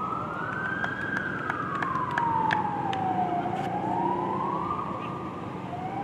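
Emergency vehicle siren wailing, its pitch rising slowly to a peak about a second in, falling until past three seconds, then rising again and fading near the end.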